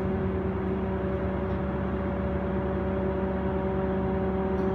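Steady machinery hum inside a hydroelectric plant's medium-voltage switchgear room: an even drone with several steady tones layered over it.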